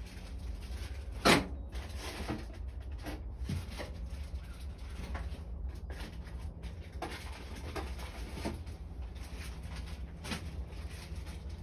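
Light clicks and knocks of pipe fittings being handled and fitted to an air tank, with one sharper knock about a second in, over a low steady hum.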